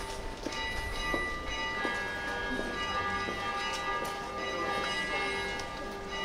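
Church bells ringing, repeated strikes whose tones overlap into a steady, ringing chord.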